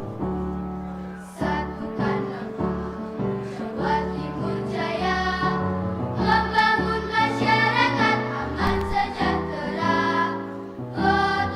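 Music: voices singing over an instrumental accompaniment, the singing coming in about a second and a half in.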